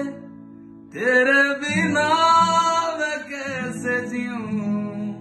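Background music: a man singing a slow song over guitar, the voice pausing for about the first second before the next sung line.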